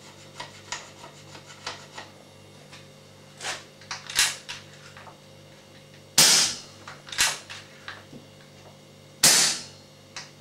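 Air rifle fitted with a small RWS silencer firing two shots, each a sharp crack, about three seconds apart in the second half, with a softer crack a second after the first. Lighter clicks and two smaller knocks come before the shots.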